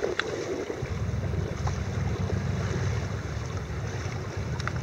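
Wind rumbling on the microphone over water lapping and splashing around a small boat under way on choppy water.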